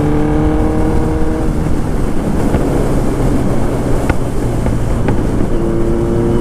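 Kawasaki Z900's inline-four engine running at a steady cruise while riding, its even engine note slightly rising for the first second and a half. It is then mostly covered by rushing wind noise, and the engine note comes back clearly near the end.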